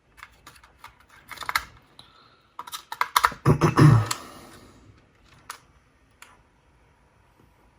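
Sharp plastic clicks and clacks from a Sony WM-DD33 cassette Walkman's buttons and mechanism being worked by hand to check why play won't engage. The clicks come in a quick run, with a denser clatter and a heavier knock in the middle, then one last click.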